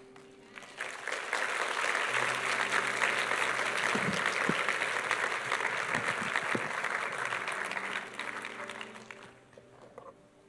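Audience applauding, building up within the first second or two, holding steady, then dying away near the end.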